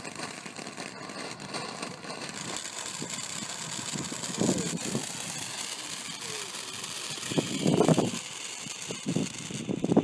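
Ground fountain firework spraying sparks: a steady hiss with fine crackling, swelling louder briefly about four and eight seconds in, and thinning out just before the end.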